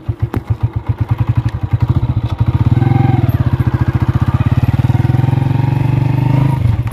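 Motorcycle engine running with an even, rapid beat, speeding up and getting louder about two and a half seconds in as the bike accelerates, then easing off briefly near the end. A single sharp click comes just after the start.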